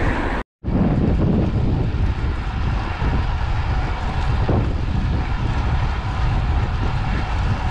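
Wind buffeting the microphone of a camera carried on a moving road bike, a steady rushing noise heaviest in the low end. The sound drops out completely for a moment about half a second in.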